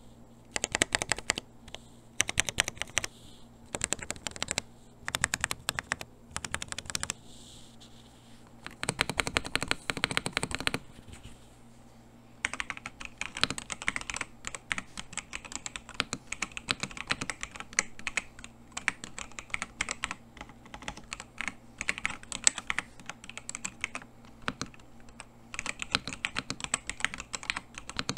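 Typing on a Jamesdonkey RS2 gasket-mount mechanical keyboard with linear switches. It starts as short bursts of keystrokes with brief pauses between them, then becomes continuous fast typing from about halfway through.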